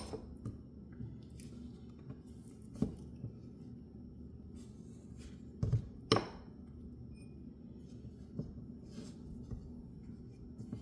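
Spoon scooping ice cream out of a carton into a cup: scattered scrapes and sharp knocks, the loudest about six seconds in, over a faint steady low hum.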